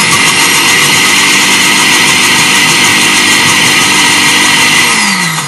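Electric countertop blender running at a steady speed, mixing egg, salt, pepper and vinegar for mayonnaise before the oil goes in. Near the end it is switched off and the motor winds down with a falling pitch.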